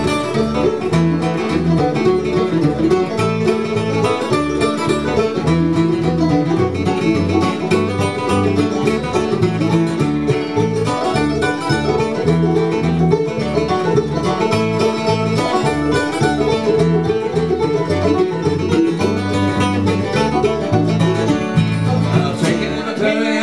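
Bluegrass band's instrumental break: five-string banjo picking over strummed guitar and a steady, evenly pulsing bass line.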